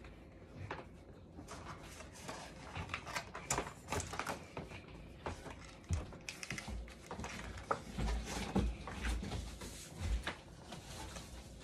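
Irregular small clicks, knocks and rubbing of things being handled, with low thuds in the second half as someone walks across a wooden floor toward a cardboard box.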